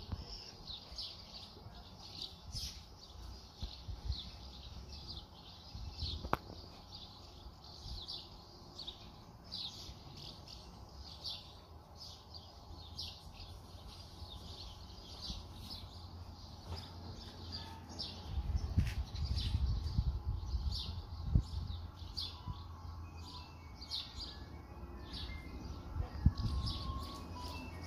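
Birds chirping over and over, short high calls several times a second. Low gusts of wind rumble on the microphone about two-thirds of the way in and again near the end.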